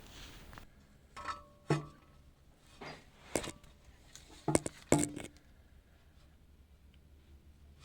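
A series of sharp metallic clinks and knocks, about six over a few seconds, some ringing briefly: steel tools and bolts being handled and set down.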